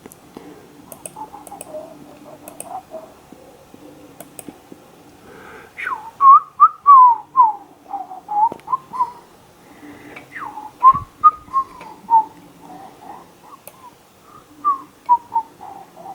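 A person whistling a meandering tune in short, sliding notes, starting about six seconds in, over a faint steady hum. A few faint clicks come before it.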